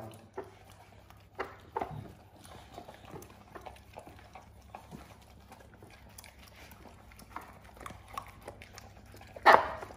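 Two Staffordshire bull terriers eating from their bowls: scattered chewing, lapping and clicks of the bowls, with a louder clack near the end.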